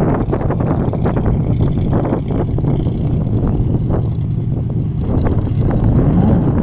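A Formula Offroad racing buggy's engine running out of sight on the hill, a steady low drone that rises and falls in pitch near the end, mixed with wind buffeting the microphone.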